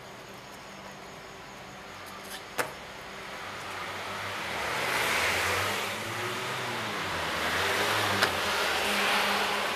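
Cars passing on a street, engine and tyre noise swelling twice, once around the middle and again near the end, over a steady traffic hum. A sharp click sounds a little under three seconds in.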